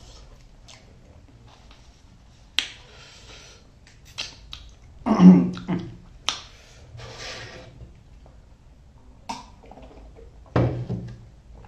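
Close-miked eating sounds: sharp snaps followed by short spells of crunchy chewing. Two short vocal sounds come through, the louder one about halfway through and another near the end.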